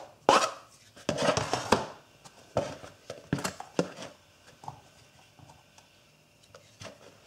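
Chopped green onions being scraped off a plastic cutting board into a plastic bowl with a knife, with a series of knocks and scrapes as board and bowl are handled and the bowl is set down on the board. The handling sounds thin out after about four seconds into faint small rustles.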